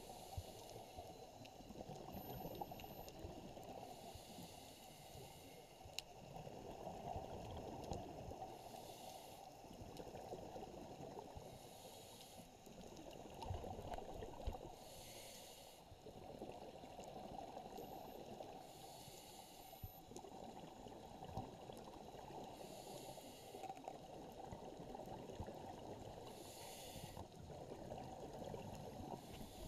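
Scuba exhalation bubbles from a regulator heard underwater: a bubbling hiss about every three to four seconds, each lasting about a second, in rhythm with a diver's breathing. Underneath is a steady muffled rumble of water, with a few faint sharp clicks.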